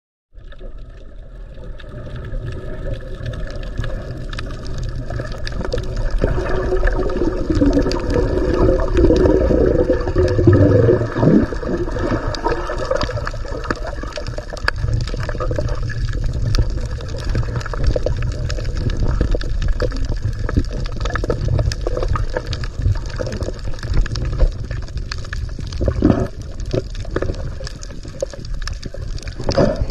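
Sea water sloshing and gurgling around a swimmer's camera, over a steady low rumble. A wavering hum rises and falls for a few seconds around the middle.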